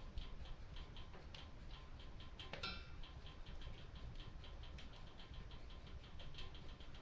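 Hearth fire crackling in a fireplace: a quick run of small, faint pops, several a second, over a low steady rumble, with one louder crackle about two and a half seconds in.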